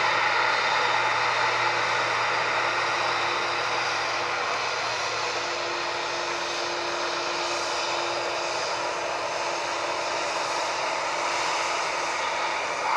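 Boeing 747-400's jet engines running steadily at low thrust as the airliner taxis past, a constant whine and rush of jet noise with a faint steady hum under it.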